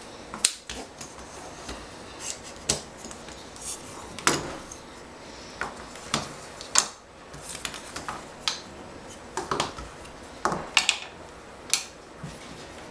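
Wooden pieces of a scroll-sawn toy hospital bed knocking and clicking together as its ends are taken off and the bed is broken down: irregular sharp wooden knocks and taps, some in quick clusters.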